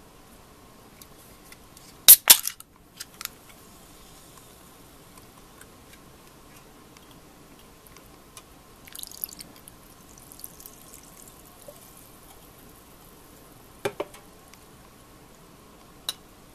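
A carbonated drink can's ring-pull cracking open with a sharp double snap about two seconds in. Later the fizzy grapefruit sour-taste drink hisses faintly as it is poured over ice, and a glass clinks twice near the end.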